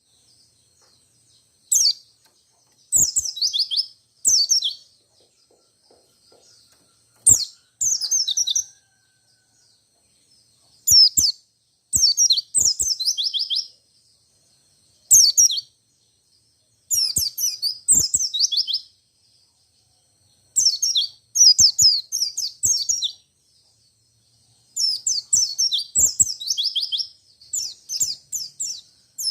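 Wild pleci, a Zosterops white-eye, singing in repeated short bursts of fast, high chirping trills, each phrase a second or two long with pauses between.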